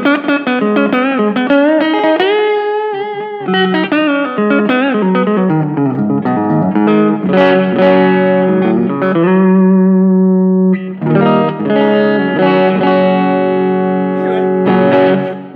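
EART headless electric guitar on its neck pickup, played through a Fender Rumble 15 amp fitted with a guitar speaker, with a little reverb and delay: single-note lines with string bends, then held chords after a short break about ten seconds in. The tone is starting to break up a little.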